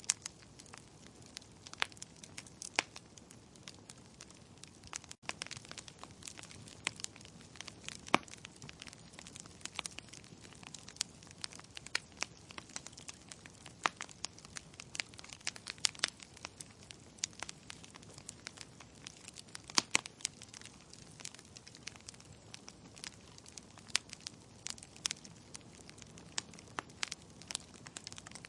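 Wood fire crackling in a fireplace: irregular sharp pops and snaps, several a second, over a soft steady hiss of burning logs, with a few louder pops.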